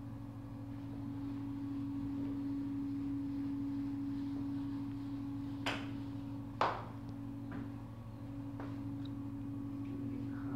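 A whiteboard being wiped clean with a duster, soft rubbing with two sharp knocks about a second apart midway and a few lighter taps after, over a steady low electrical hum.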